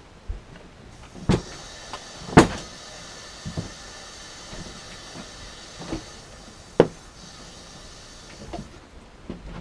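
Scattered knocks and clinks of metal parts and tools being handled at a workbench, the loudest about two and a half seconds in. Under them runs a steady hiss that starts about a second in and stops shortly before the end.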